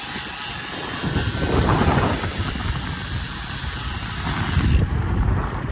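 Wind buffeting a camera microphone on a moving bicycle: a heavy rumble with hiss, gusting louder about a second in and again near the end.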